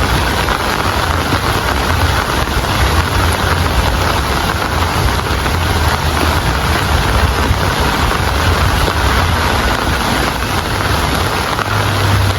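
Steady heavy rain falling, an even hiss with no pauses, over a constant low rumble.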